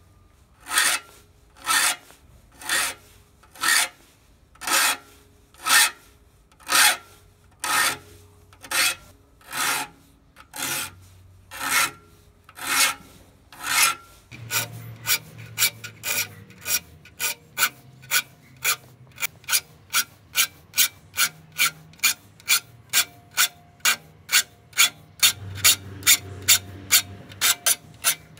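Steel teeth of an old crosscut saw being filed by hand, sharpening the saw: rhythmic rasping file strokes, about one a second for the first half, then quicker, shorter strokes at two to three a second.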